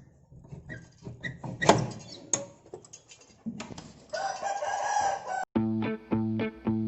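A few light taps and one sharp knock, then a rooster crowing for about a second, cut off abruptly by music with a plucked-guitar beat striking about twice a second.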